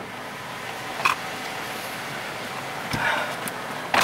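Someone climbing into the driver's seat of a Toyota Vios, with the door open: a short click about a second in and a thump with rustling around three seconds, over a steady hiss.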